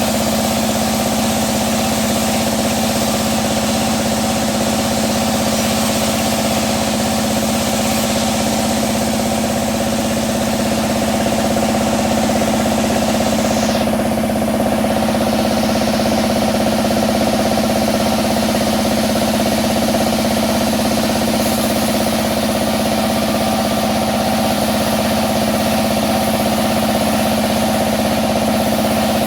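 Sawmill bandsaw running steadily with a constant hum over a dense hiss, while teak is being sawn into boards; the high hiss drops away briefly about halfway through.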